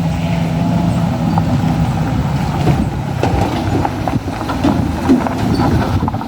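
Bus air horn holding a steady chord that cuts off a little under three seconds in, followed by a rough engine rumble and road noise as the bus climbs.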